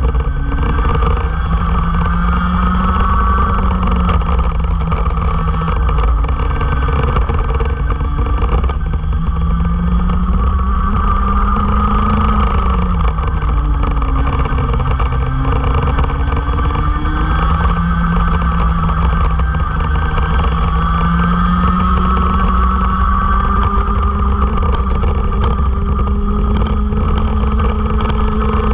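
Racing kart engine heard onboard, its pitch climbing and falling as it speeds up and slows, with a sharp drop about halfway through before it picks up again. Heavy low rumble from wind and vibration on the microphone.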